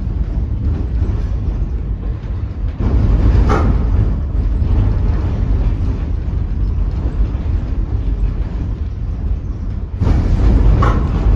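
Two-axle retro tram motorcar moving slowly, heard from inside its wooden saloon: a steady low rumble that grows louder about three seconds in and again near the end, each time followed by a brief squeak.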